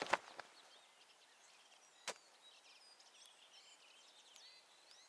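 Shotgun shots at a flying woodcock: a sharp report with a short ringing tail, then a second, quieter shot about two seconds later. Faint bird chirps follow.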